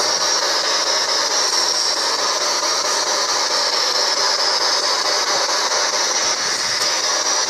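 Radio static from a spirit box used to listen for spirit voices: a steady, unbroken hiss.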